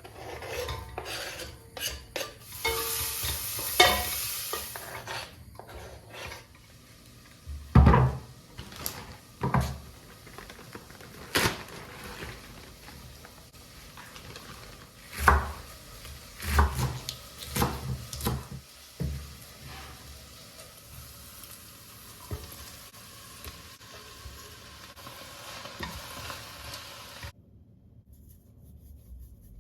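Cooking in a pan: food sizzling, loudest a few seconds in, with a utensil stirring and knocking sharply against the pot or pan now and then.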